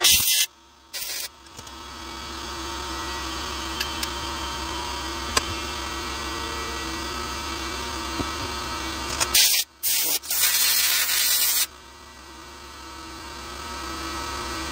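Compressed air hissing from a blow gun in short blasts, blowing out a freshly degreased rifle barrel and liner: two brief blasts at the start, then a longer blast of about two seconds two thirds of the way through. A steady motor hum runs between the blasts.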